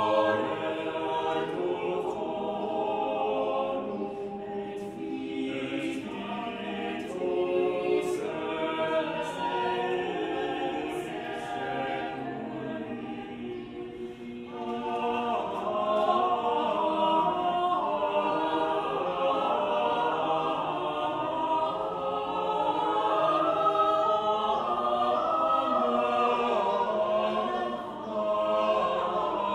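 A mixed chamber choir of sopranos, altos, tenors and basses singing a cappella. The singing thins to a softer passage about halfway through, then swells back fuller and louder.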